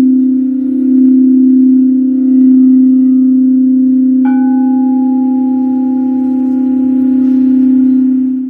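Tibetan singing bowl sung by rimming, giving a loud steady low hum with a slow waver. About four seconds in a single strike adds a higher ringing tone over the hum, and the sound cuts off suddenly near the end.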